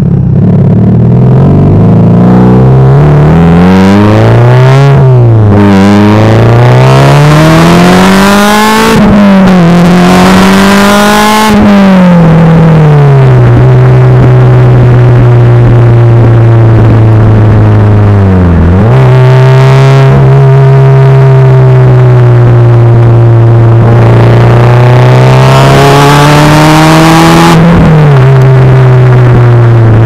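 Subaru Impreza STI's turbocharged boxer four heard through an A.R.T. titanium exhaust, from right beside the tailpipes while driving. The note climbs and drops back several times in the first dozen seconds, then settles into a steady low drone with a brief dip about two-thirds of the way in. It falls away near the end.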